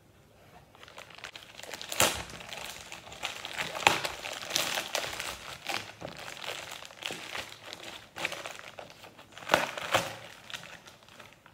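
Plastic courier mailer being opened and handled: irregular crinkling and crackling of the plastic, with a few sharp snaps.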